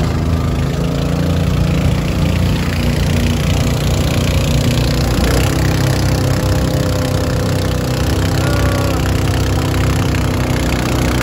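Small engine of a passenger boat running at a steady speed, a constant low hum.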